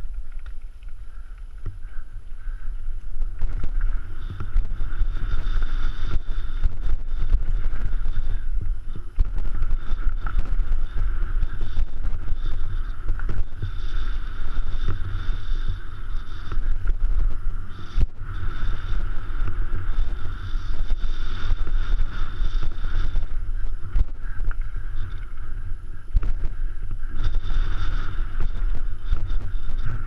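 YT Capra full-suspension mountain bike riding fast down a rough dirt and rocky trail, heard through a GoPro's microphone: wind buffeting the mic and tyres rolling over the ground, with scattered knocks and rattles from the bike. It grows louder about three seconds in as the bike picks up speed.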